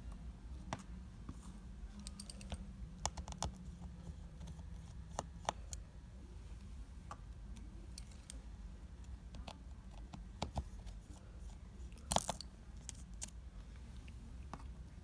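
Sparse small clicks and ticks of a precision screwdriver and tiny screws being worked out of the metal LCD shield of an iPad mini 2, with a louder brief cluster of clicks near the end, over a low steady hum.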